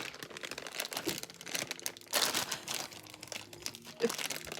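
Packaging crinkling and tearing as a mystery-figure box is opened by hand, with irregular crackles throughout.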